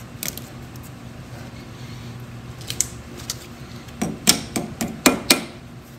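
Metallic clicks and clinks of pliers working steel safety wire at the hub bolt heads, with a cluster of louder clinks about four to five seconds in. A steady low hum runs underneath.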